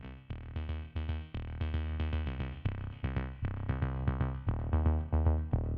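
Background music: electronic music with a drum-machine beat, synthesizer notes and a heavy bass line.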